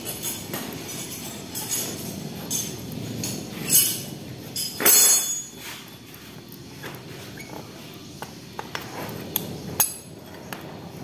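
Light metallic clinks and taps of hand tools, including a steel hex key, being handled against the motorcycle's engine. They come at irregular times, with a louder, longer scrape-like clatter about five seconds in.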